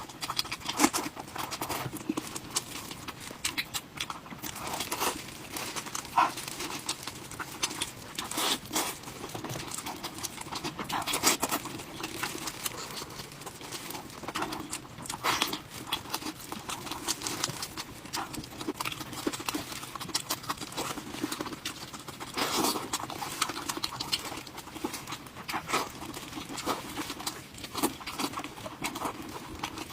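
Close-miked eating sounds: a person chewing and biting into smoked pork ribs, with irregular wet clicks and smacks.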